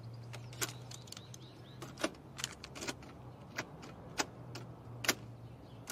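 Buttons on a boombox being pressed: a handful of irregular, sharp plastic clicks over a faint steady low hum.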